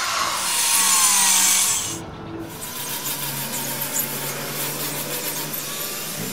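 Handheld power tool grinding into the surface of a large sculpture, a loud rasping grind lasting about two seconds; it then cuts abruptly to a quieter, steady hum.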